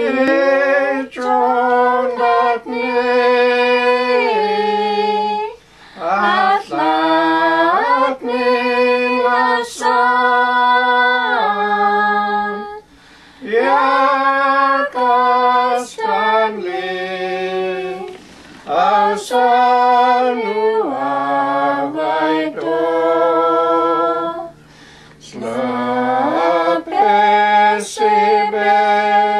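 Women singing a hymn unaccompanied in the Carrier (Dakelh) language, in sung phrases of held notes separated by short breaks for breath.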